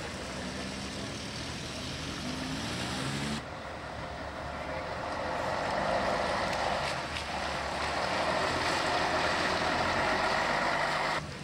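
Cars driving off the ferry close past on wet tarmac, their engines running. One engine note rises over the first three seconds, then a louder steady rush of engine and tyre noise takes over and stops abruptly near the end.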